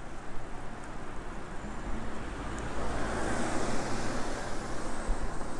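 Street traffic noise with low wind rumble on the microphone; a vehicle passing swells up about three seconds in and fades.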